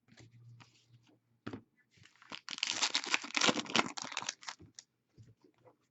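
Crinkling and tearing of a trading-card pack's foil wrapper being ripped open, densest for about two seconds in the middle, with lighter rustles and small clicks of card handling around it.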